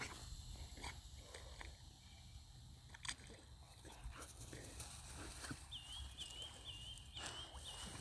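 Quiet outdoor ambience at the water's edge with a steady low rumble and a few faint ticks. Near the end comes a quick run of five identical high chirps.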